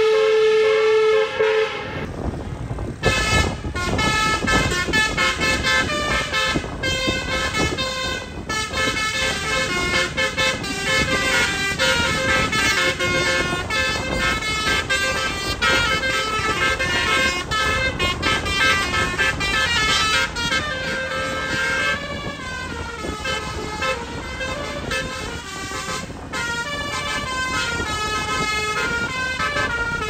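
Basuri telolet musical horn on a car playing a tune of toots that step up and down in pitch.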